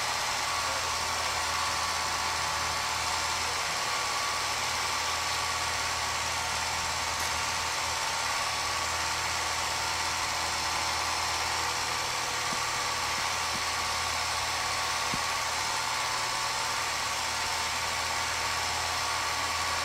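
Film projector running: a steady motor hum and whir with an even hiss, unchanging throughout.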